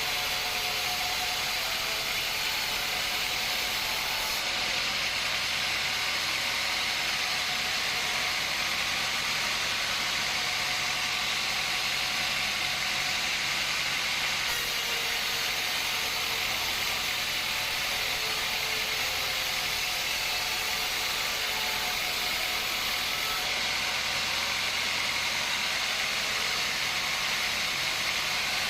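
Woodworking machinery running steadily, an even hiss without break.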